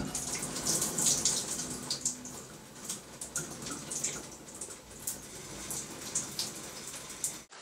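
Shower water running and splashing, a steady hiss with irregular spatters.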